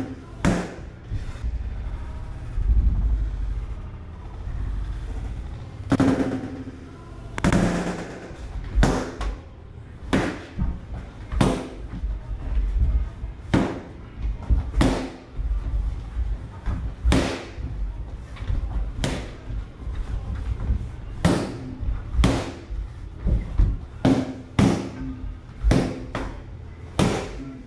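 Boxing gloves hitting focus mitts: a series of sharp pad smacks, every second or so and sometimes in quick pairs, with a lull of a few seconds near the start.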